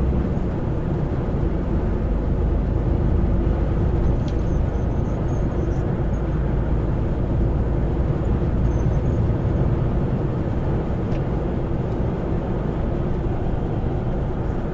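Steady low drone of engine and road noise inside a semi-truck's cab while it drives along.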